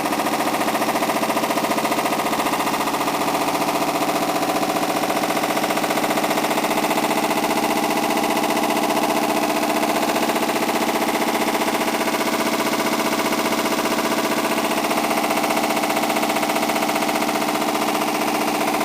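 Hotpoint WM62 washing machine on spin, making a horrendous noise: a loud, steady, fast rattle over a hum of several tones. The owners take it for a broken drum spider and worn drum bearings.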